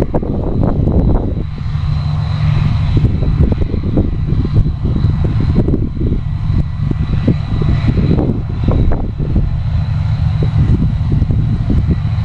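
New Holland CX8070 combine harvester running while harvesting barley: a steady, loud low engine drone with a thin, constant high whine over it and irregular rough rumbling.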